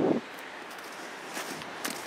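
Footsteps crunching on gritty, partly snow-covered beach sand, with a few sharp crunches about a second and a half in, over a steady outdoor background hiss.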